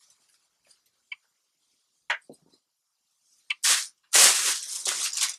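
A few faint clicks of clothing being handled, then loud, noisy crinkling rustles of a plastic shopping bag from about three and a half seconds in, as a garment is pulled out of it.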